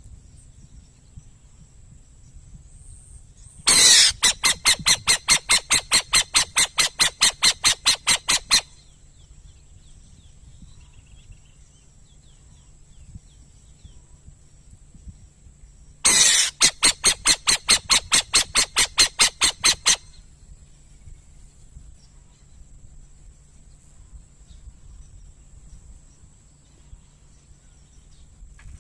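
Burrowing owl giving two bouts of rapid, harsh chattering calls at about five notes a second, the first lasting about five seconds, the second about four.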